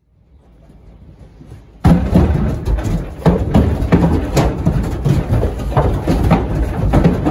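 Holstein calves unloading from a livestock trailer, their hooves knocking and thumping irregularly on the trailer floor and sides. It starts suddenly about two seconds in, over a low rumble.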